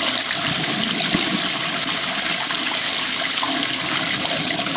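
Water running hard and steadily from a faucet, the hot side being run to purge air from the pipes after the water supply was turned back on.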